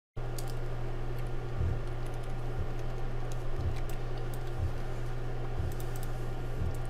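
A few faint, scattered clicks of a computer mouse and keyboard over a steady low electrical hum from the microphone, with soft low thumps about once a second.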